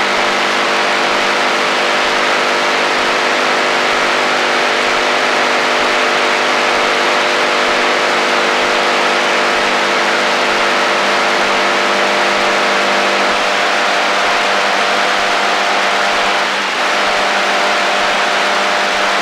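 Shortwave AM radio static on the HF band: a loud steady hiss with several steady droning tones of interference underneath. About two-thirds of the way through, some of the lower tones drop out, and a brief chirp follows a few seconds later.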